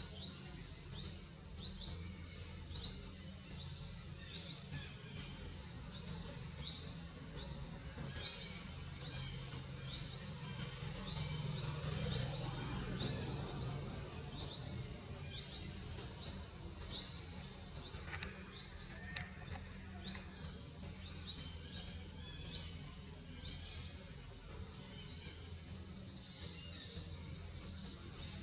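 A bird calling in the forest: one short, high, rising chirp repeated one or two times a second, over a low background hum. A high insect buzz joins near the end.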